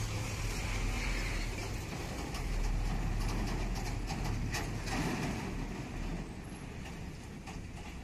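Loaded Tata lorry's diesel engine running as the truck drives past close by on a dirt road, with a few knocks and rattles near the middle. The engine sound fades after about six seconds.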